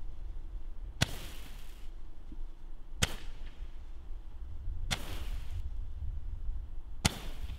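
Weco Magical Shots 30-shot Roman candle firing, one shot about every two seconds: four sharp pops, each followed by a short hiss as the star is thrown up.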